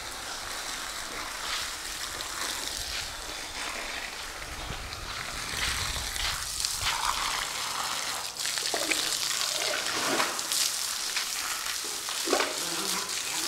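Water spraying from a hose and splashing, a steady hiss broken by irregular splatters, as an elephant takes the water into its mouth.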